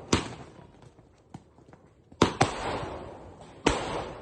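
Multi-shot sky shot fireworks cake firing: sharp bangs of aerial shells bursting, three loud reports about a second and a half apart with a smaller one just after the second, each trailing off in a fading hiss, with faint pops in between.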